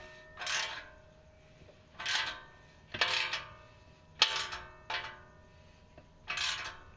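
Ratchet wrench tightening the bolt of an exhaust pipe clamp: about six short strokes of clicking, each with a metallic ring from the steel exhaust pipe.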